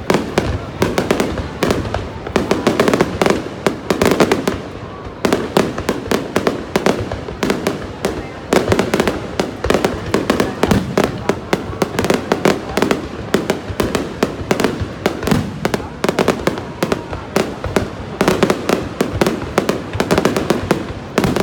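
Fireworks display: aerial shells bursting overhead in a dense, continuous barrage of bangs and crackling, many reports a second, with a short lull about five seconds in.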